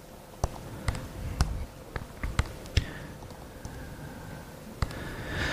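Computer keyboard being typed on: a dozen or so short key clicks at an uneven pace.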